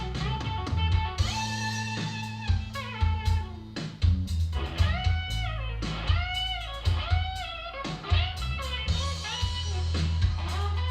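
Instrumental blues-rock music played through Bang & Olufsen Beolab 28 loudspeakers: a bending electric guitar lead over bass and drums.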